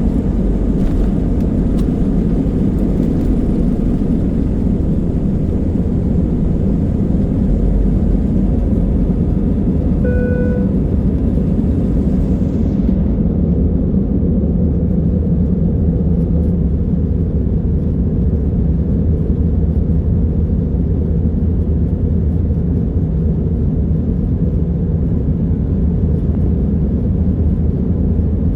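Steady rumble of engines and rushing air inside an Airbus A320's cabin in flight. A single short electronic cabin chime sounds about ten seconds in, and a higher hiss over the rumble fades away a few seconds later.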